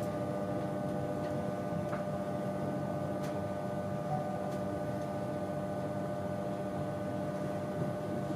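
Steady interior hum with several constant tones inside an InterCity 225 Mk4 coach as the train rolls slowly into the platform, with a few faint clicks.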